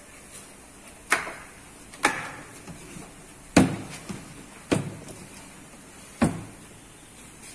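Hard plastic equipment case being set down on a table and its latches snapped open: five sharp plastic clacks about a second apart, the loudest a little past the middle.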